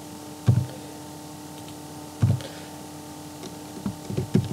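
Computer keyboard keys pressed: a single keystroke about half a second in and another about two seconds in, then a quick run of keystrokes near the end, over a steady low hum.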